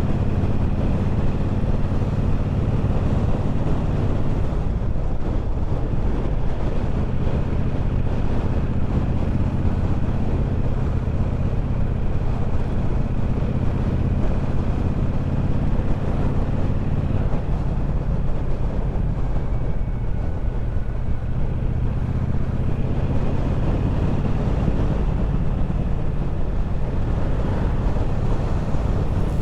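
Triumph Bobber's 1200 cc parallel-twin engine running at a steady road speed, with wind rushing over the microphone.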